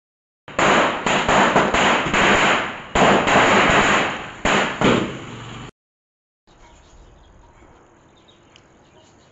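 Firecracker going off on the ground: about five seconds of loud, dense crackling and popping with several sharper bangs, then it cuts off abruptly.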